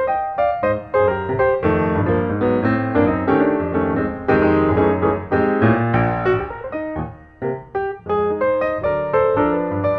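Background piano music, a steady stream of quick notes and chords.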